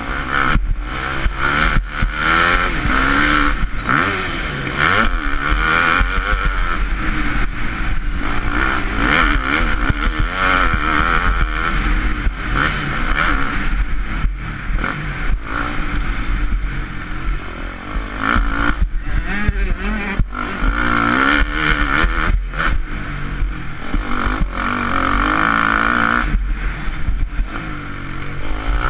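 KTM 250 SX-F motocross bike's four-stroke single-cylinder engine ridden hard, its revs rising and falling over and over as the throttle is opened and closed.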